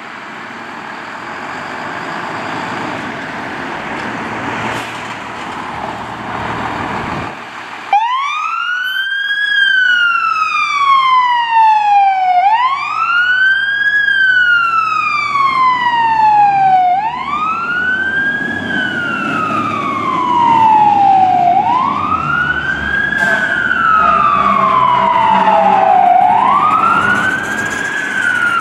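A fire engine's engine running and growing louder for about seven seconds. Then, after a sudden break, its siren wails: five cycles, each a quick rise in pitch and a slower fall, repeating about every four and a half seconds.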